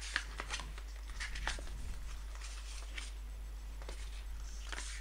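A thin paper instruction booklet being opened and its pages flipped by hand: faint, scattered rustles and crinkles of paper.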